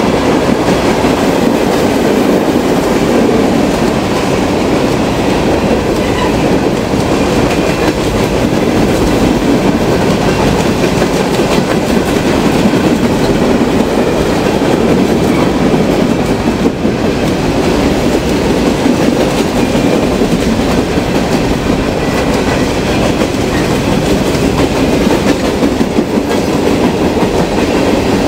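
Empty coal train's cars rolling past at a steady pace, the wheels thudding and clacking on the rails without a break, sounding as if every wheel had a flat spot.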